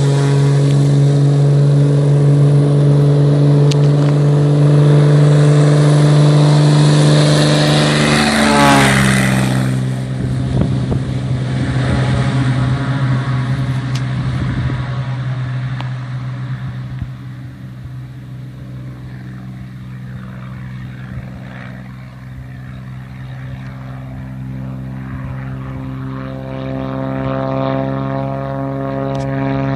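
Cessna 206's six-cylinder piston engine and propeller running steadily at high power, then throttled back about eight seconds in, the pitch falling sharply. It runs quieter for a while, then power is brought back up near the end.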